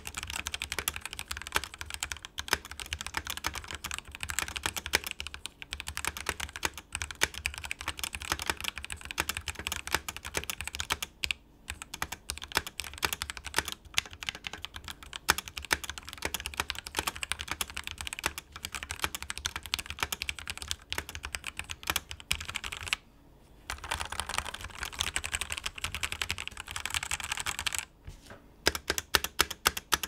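Fast, continuous typing on a Ducky One 2 Mini Year of the Rat hotswap keyboard with lubed JWK Alpaca linear switches and PBT keycaps. The typing breaks briefly about 11, 23 and 28 seconds in, then gives way to slower, louder single key presses near the end. The keystrokes have a slightly pingy ring in the case, which is put down to the new silver plate.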